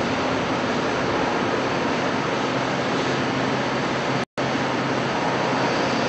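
Hydraulic power unit of a scrap metal baler running steadily, an even mechanical rush with a low hum. The sound cuts out for an instant a little past four seconds in.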